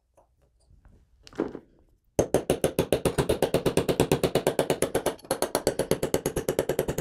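Small hammer rapidly tapping a 1/16 inch roll pin starter punch, driving the magazine-release roll pin of a Beretta Cheetah frame out through the frame. There is one light tap about a second and a half in, then a fast, even run of sharp metallic taps, about ten a second, with a brief break in the middle.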